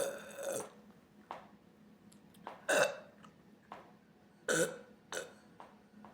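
A woman burping several times: a loud burp trailing off at the start, then two more about two seconds apart, with a few short, softer sounds between them.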